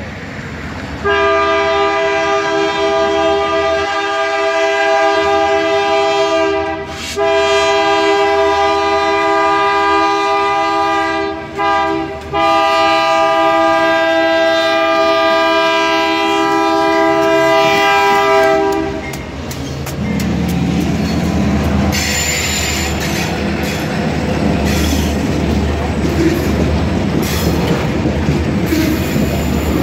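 Diesel freight locomotive's multi-tone air horn sounding the grade-crossing signal, long, long, short, long, over the first two-thirds. Then the locomotive and its freight cars roll over the crossing, with a steady wheel-on-rail rumble, clickety-clack over the rail joints and brief wheel squeal.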